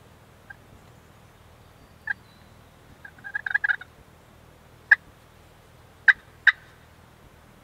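Wild turkeys calling close by: a rapid rattling gobble about three seconds in, and several short, sharp single call notes before and after it.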